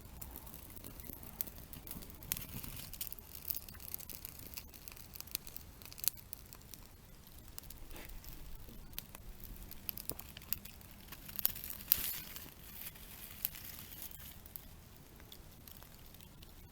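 Newly lit campfire of small twigs and spruce branches crackling, with scattered sharp snaps, a few louder ones bunched together past the middle.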